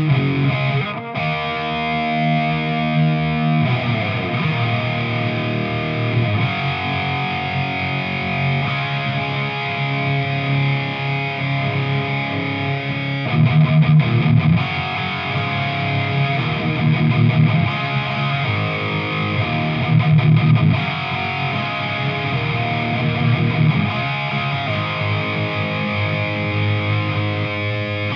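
2015 Chapman ML3 electric guitar played with a crunchy overdriven tone through its newly installed Seymour Duncan Quarter Pound bridge pickup. A chord rings out about a second in, then rhythmic chord riffing follows, with heavier low chugs now and then.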